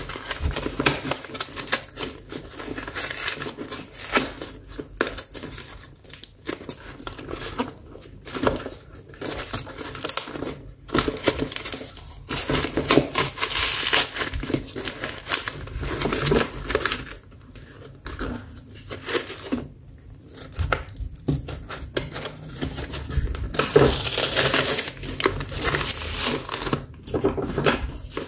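Packaging of an LED fog-lamp bulb set being handled and opened by hand: irregular crinkling, rustling and tearing of a cardboard box and its wrapping, with louder bouts now and then.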